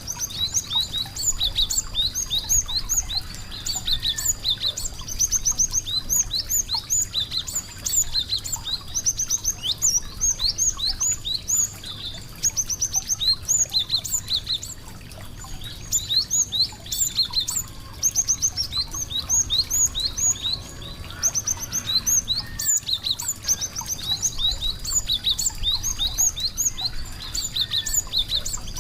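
Small songbirds chirping in fast runs of high, sharp notes that start and stop every second or two, over a thin steady high tone.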